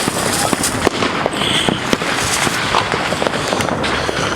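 Firecrackers going off in a rapid, irregular string of sharp pops and crackles, many bangs a second.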